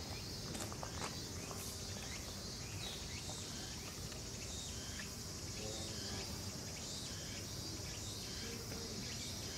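A steady, high-pitched insect drone, with short faint ticks scattered over it.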